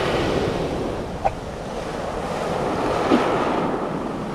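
Sea waves breaking and washing up a pebble beach, with wind buffeting the microphone. Two short tonal blips stand out, about a second in and about three seconds in.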